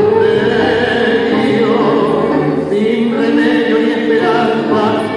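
Recorded tango song playing, with a singer's voice over the orchestra.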